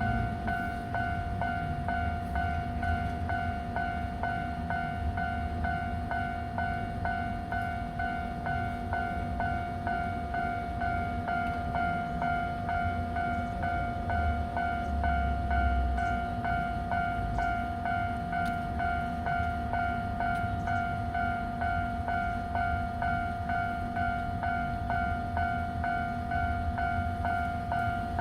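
Level-crossing warning alarm ringing continuously in an even repeating rhythm, about two strikes a second, over the low rumble of a train standing at the crossing.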